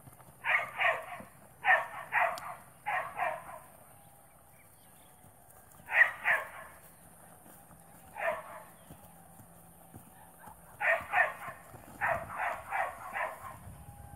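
A dog barking in bouts of quick doubles and short runs, with pauses of a few seconds between bouts.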